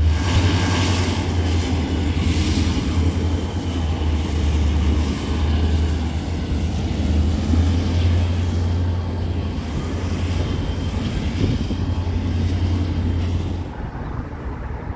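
EMD diesel-electric freight locomotive running under load with a deep steady drone and a thin high whine above it, as its train of well cars rolls past. The sound drops away abruptly near the end, leaving a quieter rumble.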